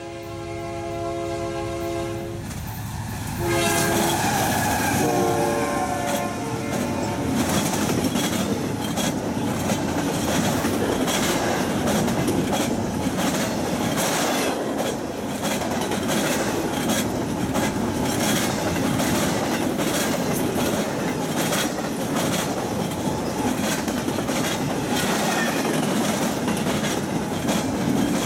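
Diesel locomotive horn sounding a long multi-tone chord, then several shorter blasts, as a Union Pacific locomotive leads a train past. From about seven seconds in, the horn stops and a steady rumble of double-stack intermodal container cars rolling by takes over, with wheels clicking over the rail joints.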